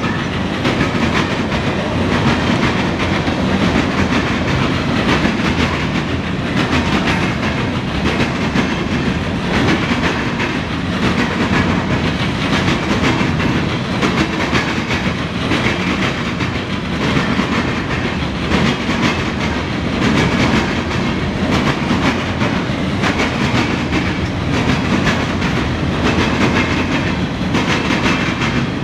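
Loaded freight gondolas carrying steel pipe rolling past, a steady loud rumble of wheels on rail with rapid clicks from the rail joints.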